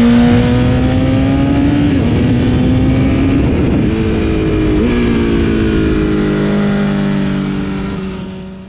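A 2020 BMW S1000RR's inline-four engine through its Akrapovič exhaust, accelerating hard with two quick upshifts, about two seconds in and again near the five-second mark. The revs then ease off and the sound fades out near the end.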